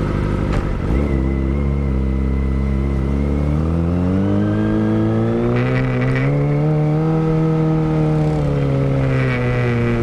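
Kawasaki Ninja ZX-25R's 249 cc inline-four running through a Villan Pro 1 full-system exhaust, loud. The engine note sits low and steady at first, climbs gradually over a few seconds, holds high, then drops away near the end.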